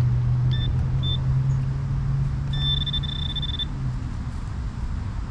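High-pitched electronic beeps from metal-detecting gear homing in on a buried coin: two short beeps, then a steady tone held about a second. Underneath runs a steady low drone that fades out about four seconds in.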